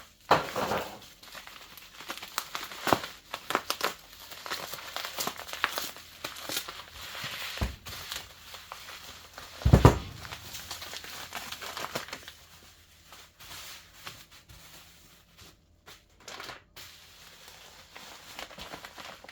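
Packaging crinkling and tearing as a new camshaft is unwrapped from its box, with a single heavy thump about halfway through.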